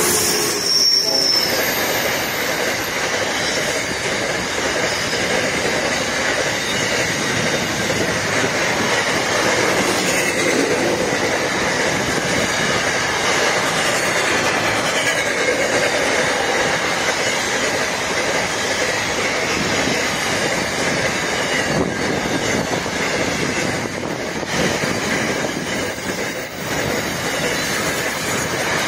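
Diesel-hauled freight train passing close by: the locomotive goes past about a second in, then a long string of freight wagons rolls by with a steady rumble of wheels on rail and wavering wheel squeal.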